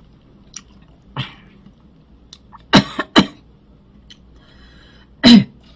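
A woman coughing in separate short coughs: a quick pair in the middle and the loudest cough near the end. Chili from the food she is eating keeps catching in her throat.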